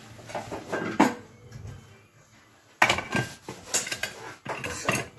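Metal pressure cooker lid set on the pot and twisted shut by its handles. Metal clatters against the rim about a second in, then a quick run of knocks and clicks over the last two seconds as it locks.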